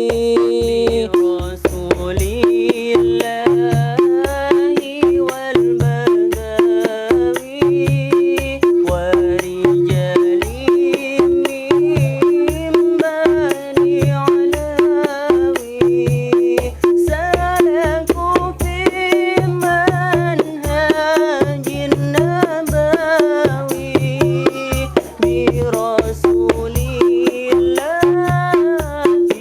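Sholawat music from buskers: a steady drum beat with a melodic line over it.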